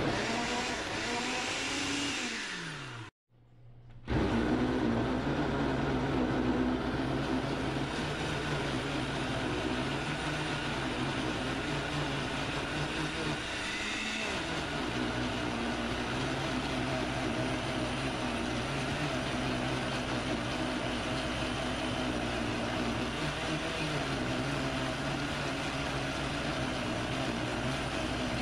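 Countertop blender motor running, grinding raw shad fillets with shrimp chunks into a paste so the fish bones are ground down. About three seconds in its pitch falls and it cuts out briefly, then it starts again and runs steadily.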